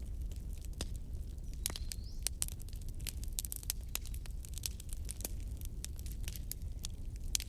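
Wood fire burning in a fireplace: frequent irregular crackles and pops over a low, steady rumble of flames.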